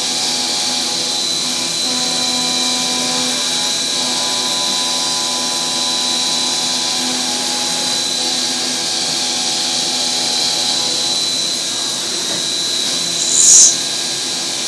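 CNC milling machine cutting a metal engine mounting plate (A-plate) with an end mill: a steady high whine over a constant cutting hiss, with several steady lower tones beneath. A brief loud hiss near the end.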